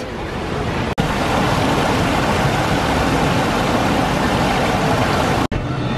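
Water rushing steadily over a small rocky waterfall into a stream, broken by two very short dropouts, about a second in and near the end.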